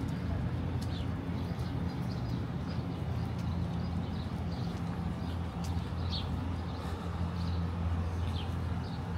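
Railway station ambience: a steady low hum under a general haze of noise, with short high chirps scattered through it.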